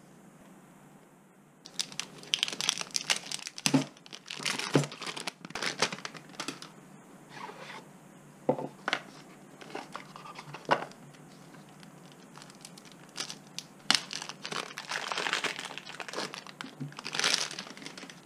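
Speed-cube packaging being crinkled and torn open: bursts of crinkling and tearing with scattered clicks and short pauses between.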